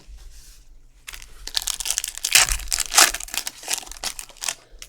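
Foil trading-card pack wrapper crinkling and tearing as it is ripped open by hand. The dense crackle starts about a second in and dies away near the end.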